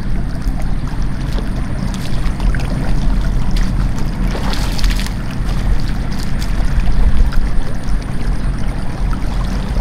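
Water rushing steadily past rocks in a stream swollen by heavy rain, a constant noise with a low rumble.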